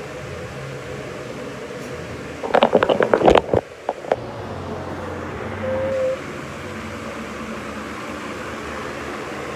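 Steady whir of a floor fan, broken a couple of seconds in by a burst of rapid knocks and rattles as the phone camera is picked up and handled.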